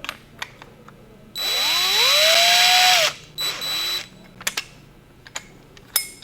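Power drill drilling a pilot hole in aluminum tubing. The motor whine rises in pitch as it spins up and holds for about a second and a half, then there is a second short burst. Small clicks and taps follow.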